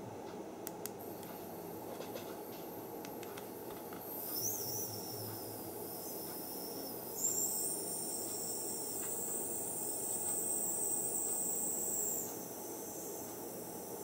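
Ultrasonic mist maker discs in a tub of water atomizing it, with a faint hiss and a high-pitched whine that comes in about four seconds in and stops about twelve seconds in. A few light clicks near the start.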